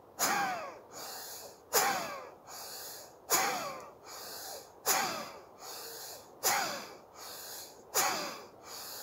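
Bhastrika (bellows breath) pranayama: forceful, rhythmic breathing through both nostrils. Six sharp, loud breaths come about every second and a half, each trailing off, with a softer breath between them.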